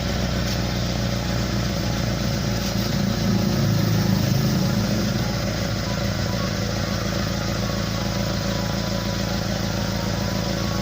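Pickup truck engine idling with a rough, snoring exhaust note that is not smooth, like air puffing out of the exhaust, briefly louder a few seconds in. The owner puts it down to a leak in the exhaust pipe, the usual cause of this sound.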